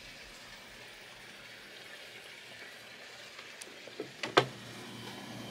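Faint steady hiss, then a few light clicks and two sharp knocks close together about four seconds in.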